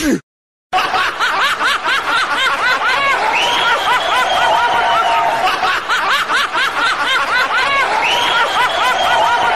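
Rapid run of short high-pitched snickering laughs, about five a second, with longer squeaky held notes mixed in around three and eight seconds in.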